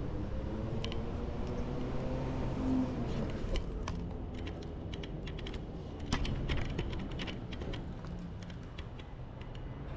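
A camera and its strap being handled close to the microphone: a run of light, irregular clicks and taps, thickest in the middle of the stretch, over a steady low background rumble.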